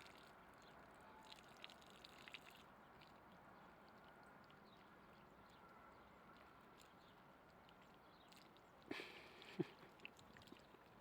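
Faint water sounds, light dripping and trickling, with a short splash and a sharp tap about nine seconds in.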